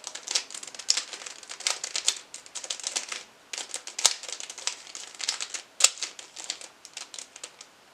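Plastic mirror cube being turned quickly by hand, its layers clicking and clacking in an irregular run of sharp clicks.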